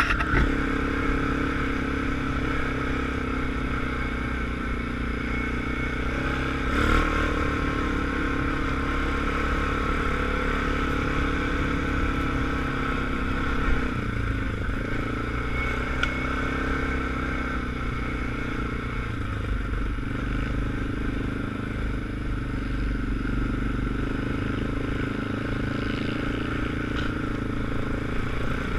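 An ATV's engine running steadily at trail speed, heard from the rider's own machine. There is a brief knock about seven seconds in and a smaller one near fourteen seconds.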